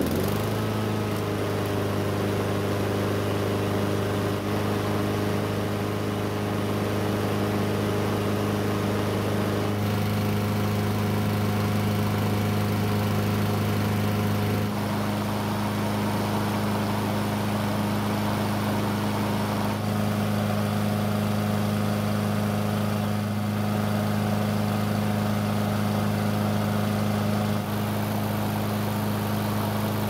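Honda GCV single-cylinder engine on a Black Max walk-behind mower comes up to speed in the first second, then runs steadily. It is running on a used factory spark plug: the no-start was caused by a faulty aftermarket plug.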